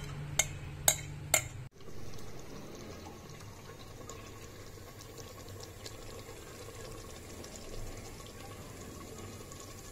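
Three sharp clicks of a utensil against a clay handi, then a faint, steady sizzling and bubbling of yogurt-marinated chicken cooking in hot ghee and butter in the pot.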